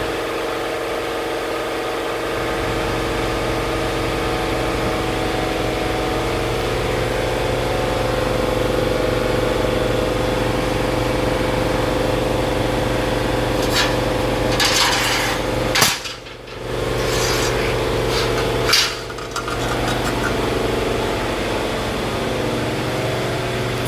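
Steady machine hum from the shop equipment running. From about two-thirds of the way through come several clanks and some scraping of steel plate, the loudest two about three seconds apart, as the freshly plasma-cut piece is handled on the table's slats.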